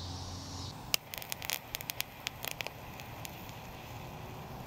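Handheld butane torch flame hissing with a low hum, cutting off less than a second in. A sharp click follows, then scattered crackling pops for a couple of seconds as a cluster of insect eggs on a leaf is torched.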